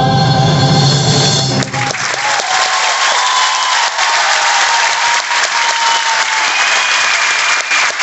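The cast's final sung chord with accompaniment, held and then cut off about two seconds in, followed by sustained audience applause with a few whoops rising over it.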